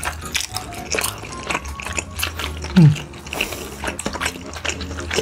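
Eating sounds: wet chewing and mouth noises with light clicks of utensils and dishes, over a steady low hum. Just under three seconds in, a brief, louder sound falls quickly in pitch.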